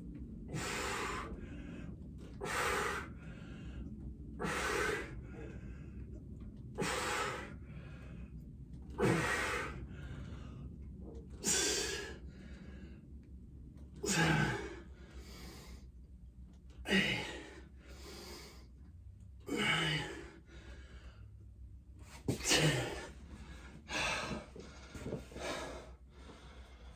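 A man's hard, forceful breathing under exertion: a sharp exhalation about every two to three seconds, several starting with a short grunt, keeping time with the repetitions of the exercise.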